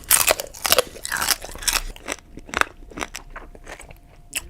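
A run of irregular, sharp crunches close to the microphone, as of something brittle being bitten or crushed.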